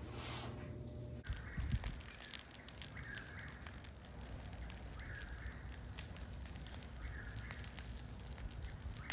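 A bird calling, a short call repeated about every two seconds, with a few sharp clicks about two seconds in.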